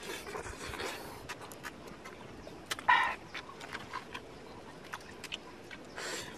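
A person eating with open-mouthed chewing: many small wet clicks and lip smacks, with a hiss of air drawn through the lips in the first second. A short sound from the throat comes about three seconds in.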